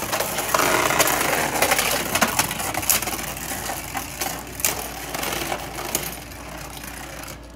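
Two Beyblade Burst Turbo tops, Wonder Valtryek and Brutal Luinor, spinning and scraping across a plastic stadium floor, with rapid sharp clacks as they knock together. The rattling fades gradually as the tops lose spin.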